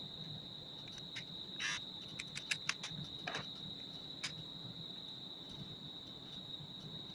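A few light clicks and taps of plastic parts being handled, the trimmer's blade section and cap, grouped about two to four seconds in, over a steady faint high-pitched whine.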